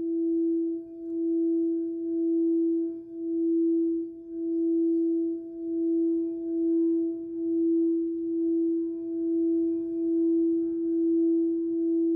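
Singing bowl drone: one steady tone with a fainter overtone an octave above, swelling and fading about once a second.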